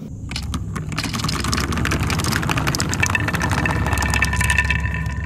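Many glass marbles rolling and clacking along marble-run tracks of wood and plastic: a low rolling rumble under dense, rapid clicks. A few steady high tones join about three seconds in.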